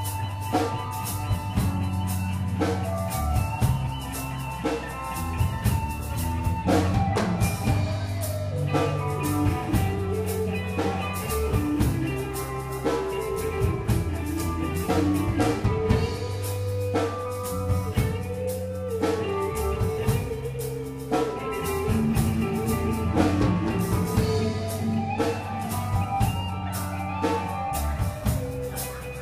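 Live band playing an instrumental passage: a drum kit keeps a steady beat under bass and electric guitar.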